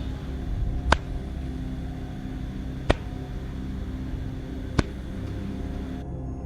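Slow footsteps sound effect, three single heavy steps about two seconds apart, over a steady low droning ambience.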